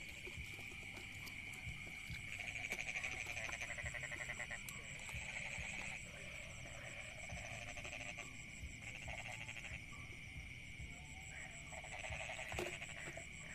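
Frogs calling: pulsing trills that come in bouts every second or two, the loudest about three seconds in and near the end. Under them runs a steady, high-pitched insect trill.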